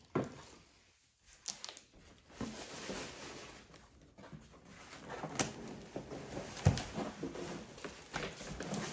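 Cardboard box and plastic packaging being handled: scattered rustling and crinkling with light knocks, and one louder knock about two-thirds of the way through.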